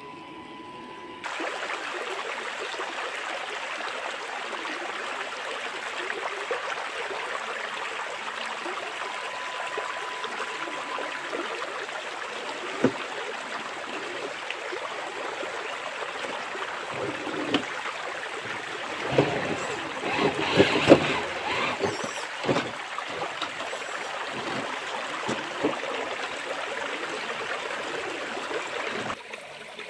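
Shallow rocky stream rushing steadily, with a cluster of splashes and knocks about two-thirds of the way through as the 6x6 RC crawler's tyres work over the wet rocks.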